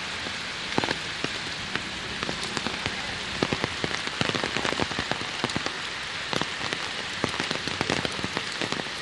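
Steady rain, with many sharp individual drops hitting close by, thickest in the middle stretch.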